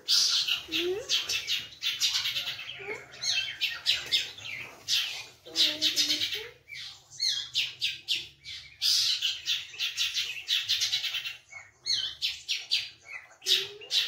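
Caged long-tailed shrike (cendet) singing: fast, dense runs of high chattering notes in phrases a second or two long, broken by short pauses, with a few lower sliding notes mixed in.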